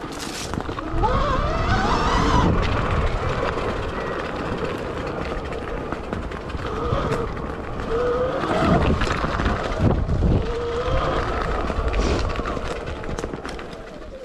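Electric dirt bike being ridden off-road, its motor whine rising and falling in pitch as the throttle is opened and eased, over a heavy low rumble.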